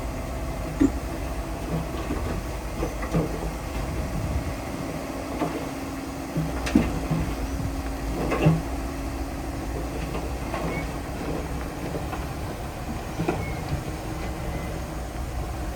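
Diesel engine of heavy earthmoving machinery running steadily, with irregular metallic clanks and knocks a few seconds apart.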